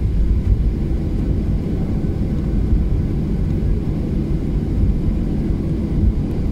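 Steady low rumble inside an airliner's cabin as it taxis on the ground after landing.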